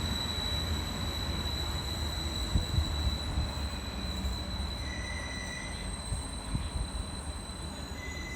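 A train running along the platform, its wheels rumbling on the rails with a steady high-pitched whine and a few soft knocks, gradually getting quieter as it moves away or slows.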